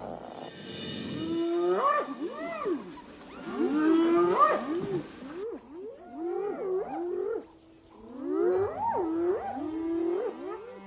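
Spotted hyenas calling: a run of short rising-and-falling cries, several voices overlapping, coming in about four bouts with brief pauses between them.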